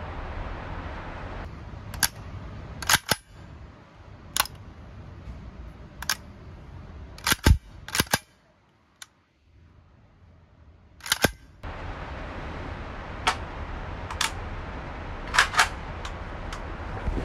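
Sharp metallic clicks and clacks of a Kalashnikov KP-9's action being handled: about a dozen single clicks spaced a second or more apart, some in quick pairs, with a short near-silent stretch about halfway through.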